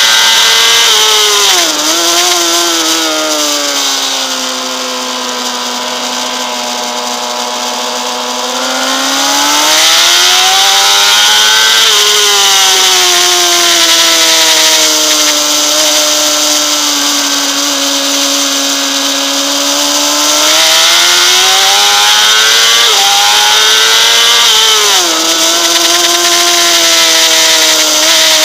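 Honda CBR600RR's inline-four engine at high revs, heard on board at speed over a steady hiss, its pitch dropping and climbing again several times as the throttle is shut for corners and opened on the exits.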